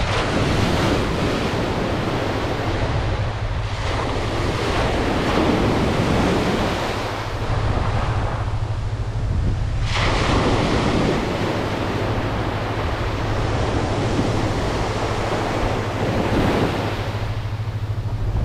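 Shore-break surf breaking and washing in over the sand in the shallows, swelling and easing in about four surges.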